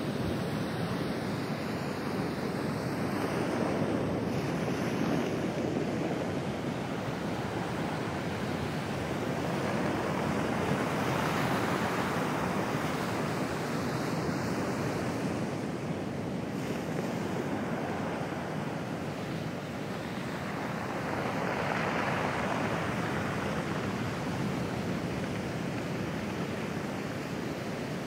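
Pacific Ocean surf breaking and washing up over a pebble beach: a continuous rushing wash that swells louder three times as bigger waves come in.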